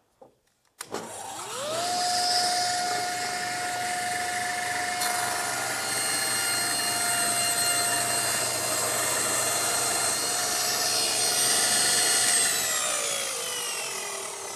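Table saw switched on with a click, its motor spinning up to a steady whine; a few seconds later the blade starts ripping a board along the fence, adding a cutting rasp over the whine. Near the end the saw is switched off partway through the rip and the blade coasts down, its pitch falling.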